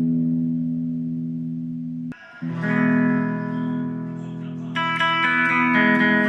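Harley Benton Les Paul-style electric guitar playing chords. A held chord fades, is cut off about two seconds in, and a new chord is struck right after. Another chord with brighter high notes comes in near the five-second mark.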